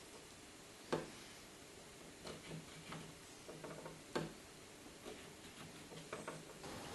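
Faint taps and light scraping of a pencil marking a chipboard panel along a folding rule, with two sharper taps about a second in and just after four seconds.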